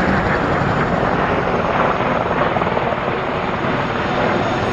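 Loud, steady engine noise of an aircraft flying at an airshow.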